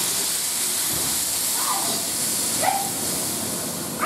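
Water poured into a hot kadai of fried, spiced elephant foot yam and potato cubes, hissing and sizzling steadily as it hits the hot pan.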